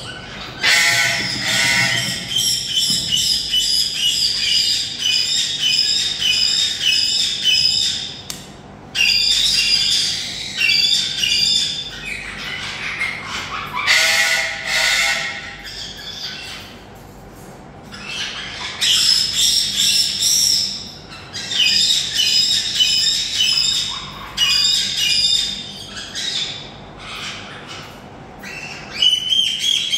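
Eclectus parrot chick squawking as it is handled for leg-banding: bouts of rapid, harsh, pulsing calls a few seconds long, broken by short pauses.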